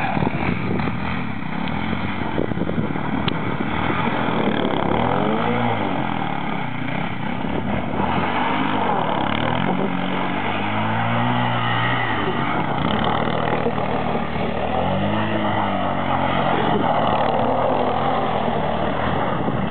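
Yamaha Raptor YFM700R quad's single-cylinder four-stroke engine revving up and falling back again and again as the quad spins and drifts on snow, over a steady rushing noise.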